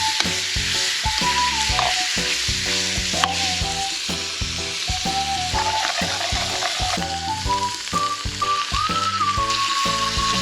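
Food sizzling and frying in an iron wok, with some stirring, under background music that has a whistle-like melody and a bass line.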